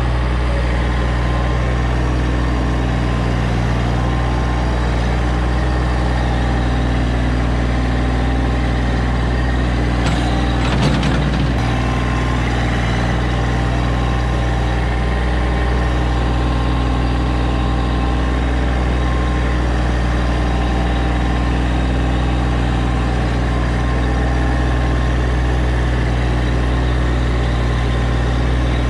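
An engine running steadily at an even speed: a low, unchanging drone, with a brief knock about eleven seconds in.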